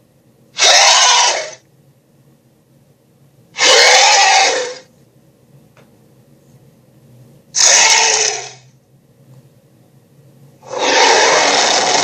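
Sharptooth-style monster roar sound effect, used as a dragon's roar: three short harsh roars about three seconds apart, each dropping in pitch as it fades, then a longer roar starting near the end.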